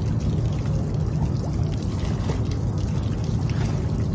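Seawater washing against the steel bow of an anchored ship, over a steady low rumble.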